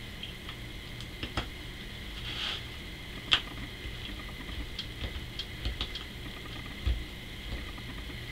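Hand screwdriver driving small screws through a plastic bracket into a wooden block: scattered light ticks and clicks of the tool on the screws and plastic, with a few louder clicks and one dull knock. A faint steady high whine runs underneath.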